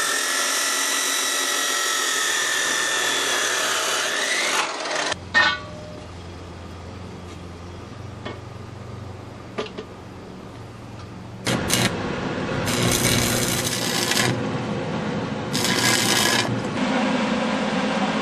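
Abrasive metal chop saw cutting through steel railing bar with a high whine; its pitch rises just before the cut ends about four and a half seconds in. After a quieter stretch with a low hum, a scraping tool noise starts at about eleven seconds, with two louder bursts.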